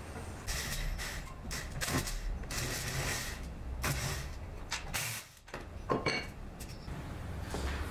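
Cordless drill run in short bursts, backing the screws out of a metal lathe faceplate on the underside of a wooden piece, with handling knocks and a sharper clack about six seconds in.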